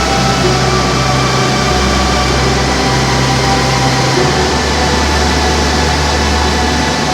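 Steady rushing of a flooded waterfall and whitewater rapids, overlaid with a soft background music track of held notes whose bass note changes every few seconds.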